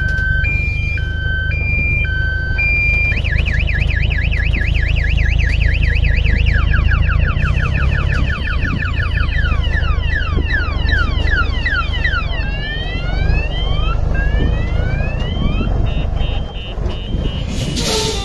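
A truck's electronic reversing siren cycling through its sounds: a two-tone hi-lo, then a fast warble, then falling and then rising sweeps, and back to the hi-lo. Under it runs the steady low rumble of the tipper truck's diesel engine, with a short burst of hiss near the end.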